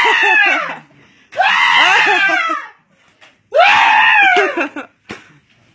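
A child screaming in three long shrieks with short gaps between them, each rising and then falling in pitch.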